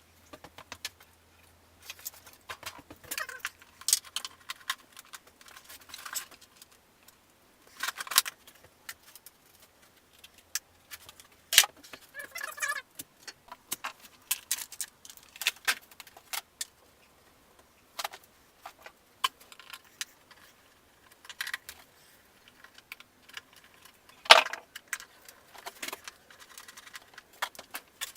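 Metal hand tools and small fasteners clinking and rattling in short, irregular bursts as a motorcycle's upper parts are unbolted. A couple of sharper knocks stand out, one near the middle and one near the end.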